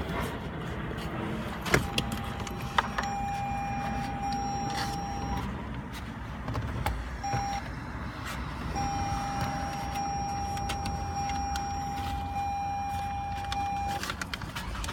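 2016 Toyota Highlander that will not start. Two sharp clicks are followed by a steady high electronic tone that sounds for a few seconds, blips briefly, then returns for about five seconds. The engine does not catch.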